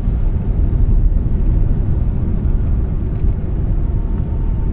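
Steady low rumble of a moving car, heard from inside the cabin: engine and tyre noise while driving.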